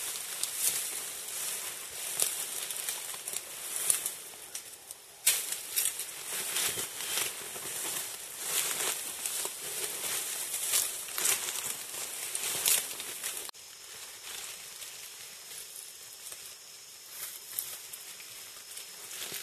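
Leaves, twigs and vines rustling and crackling in dense forest undergrowth, in irregular bursts over a steady high hiss. The sound changes abruptly twice, about five seconds in and about thirteen seconds in.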